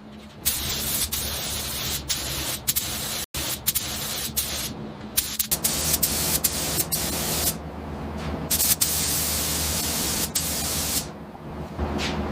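A hissing spray jet, such as a spray gun, blaster or washer, running in long bursts that cut off and restart abruptly several times over a steady low machine hum.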